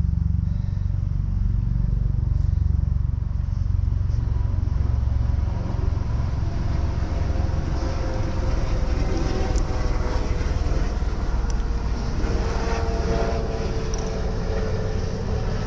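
Helicopter flying over: a steady low rumble, with a higher whine coming in about halfway through and drifting slightly down in pitch.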